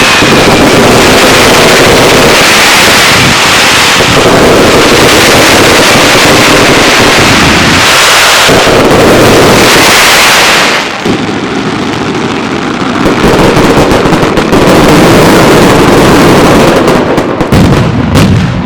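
Dense daylight fireworks barrage: salutes and crackers going off so fast that the bangs run together into continuous loud noise. It eases about eleven seconds in, builds again, and stops near the end.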